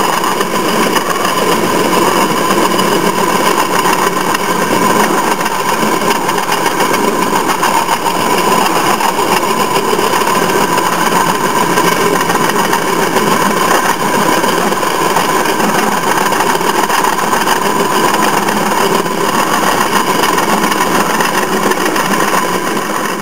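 Railroad motorcar (track speeder) engine running steadily as the car travels along the rails.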